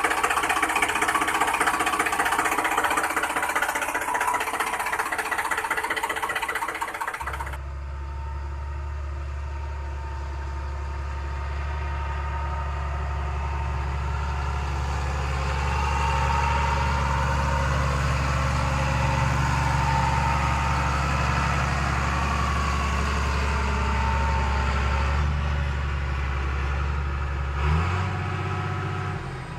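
Small motor of a homemade miniature tractor running with a dense buzzing whir. About seven seconds in the sound changes abruptly to a steadier, lower hum with a slowly wavering whine over it.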